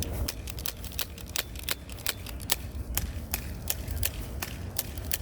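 A rapid, irregular series of sharp clicks, about three to four a second, over a steady low rumble.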